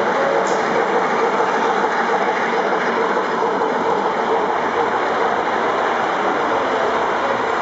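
Gauge 0 model steam locomotive and its passenger coaches running close by on the layout track: a steady noise of metal wheels rolling on the rails.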